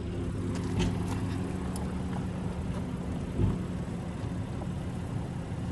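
Pickup truck's engine idling steadily, with a dull thump about three and a half seconds in.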